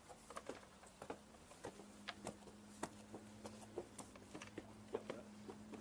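Faint, irregular footsteps clicking and scuffing on a gritty concrete floor. A low steady hum comes in about a second and a half in.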